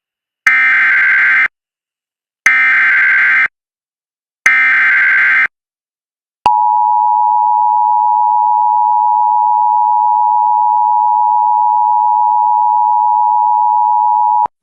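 Emergency Alert System opening signal. Three one-second bursts of SAME header data tones, one every two seconds, are followed by the EAS two-tone attention signal, a steady dual tone held for about eight seconds. It marks the start of a new emergency alert broadcast.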